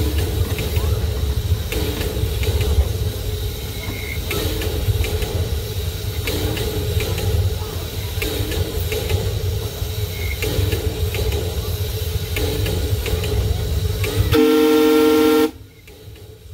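Miniature park-railway steam locomotive running along the track with a steady low rumble and scattered clicks from the wheels and rails. Near the end its whistle sounds one chime-like blast of about a second, the loudest sound, after which the sound drops away abruptly.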